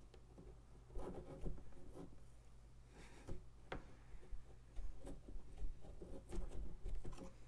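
A hand carving tool scraping and cutting into a pumpkin's rind and flesh in short, irregular scratchy strokes, with one sharp click about three and a half seconds in.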